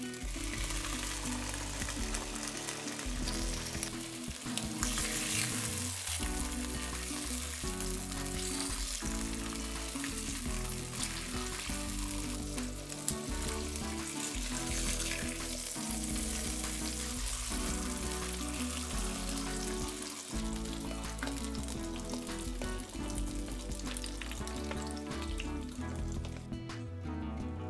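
Ham slices frying in hot oil in a nonstick frying pan: a steady, dense sizzle, with a spatula moving the slices now and then. Background music plays underneath.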